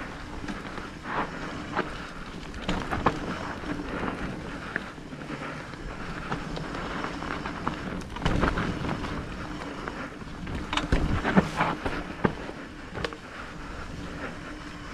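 Electric mountain bike riding a rough trail: tyres rolling over dirt and stones, with frequent knocks and rattles from the bike, some clusters heavier than others.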